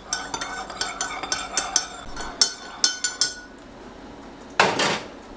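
A metal spoon stirring in a ceramic mug, clinking against its sides many times in quick succession for about three seconds. Near the end, a brief rustle.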